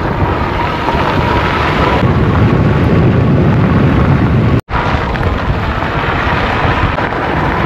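Wind rushing over the microphone, with a faint steady whine, while riding an e-bike. The sound cuts out for an instant a little over halfway through.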